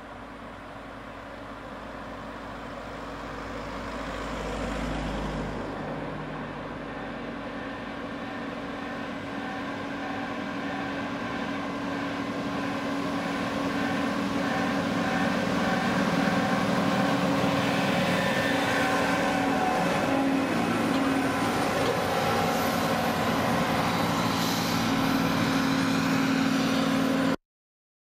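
John Deere combine harvester's diesel engine running as the machine drives along the road, growing steadily louder as it approaches, with a brief low rumble about five seconds in. The sound cuts off abruptly near the end.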